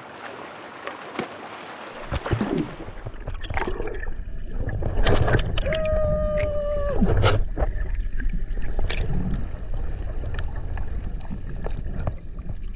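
Camera going under the sea surface with a snorkeler: a light surf hiss at first, then from about two seconds in a muffled underwater rumble of moving water and bubbles with scattered clicks. A steady held tone lasts about a second near the middle.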